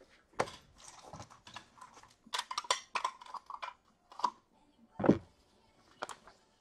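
Irregular clicks and taps, some in quick clusters, with a louder thump about five seconds in.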